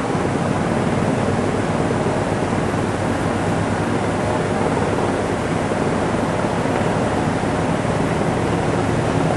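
Sikorsky S-61 helicopter's twin turboshaft engines and rotors running close by: a loud, steady rushing noise with a faint low hum underneath.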